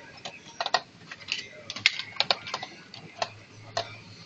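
Irregular light clicks and taps as P10 LED matrix panels are handled and turned over on a ceramic tile floor.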